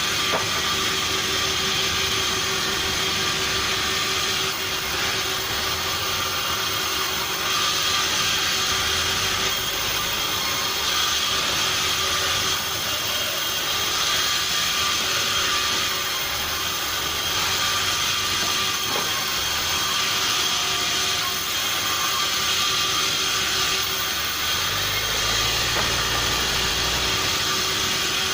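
Sawmill machinery running steadily: a constant mechanical din with fixed humming and whining tones over a hiss, with no break or stop.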